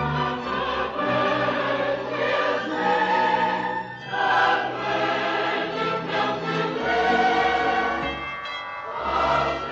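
Choir singing long, held notes with orchestra, an old film-score finale.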